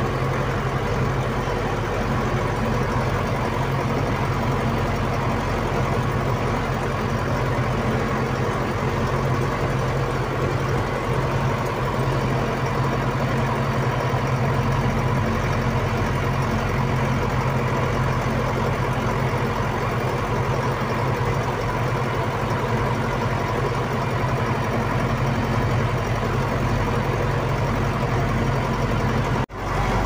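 Engine of a snow-clearing vehicle with a front plough blade, heard from inside the cab, running steadily under load as it drives and clears the snowy road. The sound cuts out briefly near the end.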